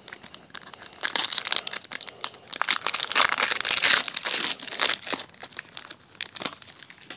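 Foil wrapper of a Pokémon card booster pack being torn open and crinkled in the hands. The dense crinkling starts about a second in and is loudest midway, then thins to lighter rustling as the cards are slid out of the torn wrapper.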